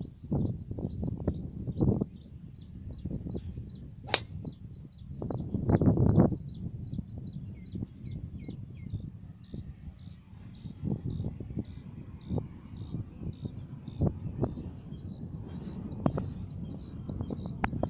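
A driver strikes a teed golf ball once, a sharp crack about four seconds in. A high chirping repeats a few times a second throughout, over gusts of low wind rumble on the microphone.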